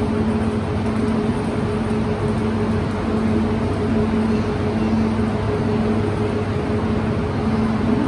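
A standing Kintetsu 21000-series Urban Liner limited-express train, its equipment running with a steady mechanical hum. A low drone in it drops out and returns every second or so, over station platform noise.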